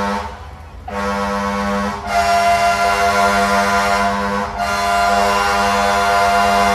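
A fire engine's air horn blaring in long, loud blasts: a short blast at the start, a brief break, then near-continuous blasts with short dips.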